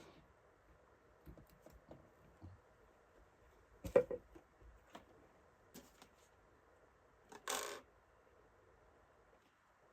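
Small clicks and knocks from handling the drone and its parts on a bench, with a sharp click about four seconds in and a short rustling scrape about two-thirds of the way through. No motors are running yet.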